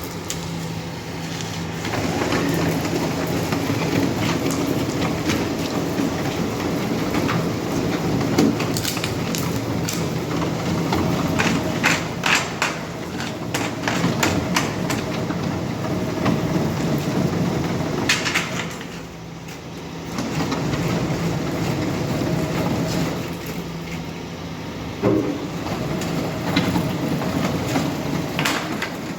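Engines of heavy asphalt-paving machinery running steadily, with repeated metallic clanks and knocks. The engine noise drops away briefly about two-thirds of the way through, then returns.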